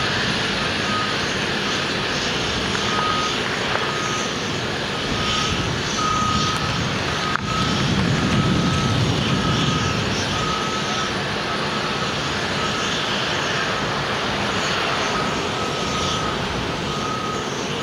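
A heavy vehicle's reversing alarm beeping steadily, under a constant broad noise of construction machinery running, with a swell of low rumble about halfway through.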